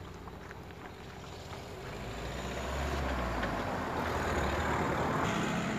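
Wind buffeting a phone microphone outdoors: a rumbling noise that swells about two seconds in and stays louder to the end.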